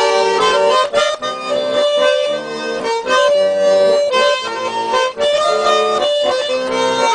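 Instrumental break in a Russian chanson song: a free-reed instrument plays the melody in held chords, in phrases of about a second.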